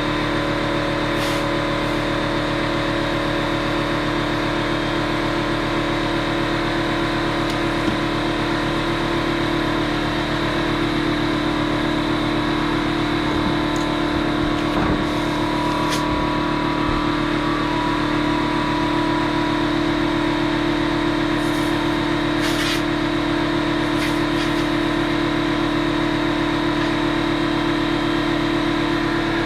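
Air compressor running steadily with an even hum while it inflates a freshly plugged tire; a few faint clicks sound over it.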